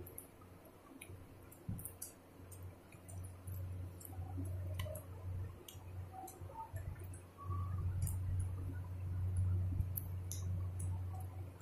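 A person eating rice and chicken curry by hand close to the microphone: wet mouth clicks and smacks while chewing, scattered irregularly, over a steady low hum that grows louder in the second half.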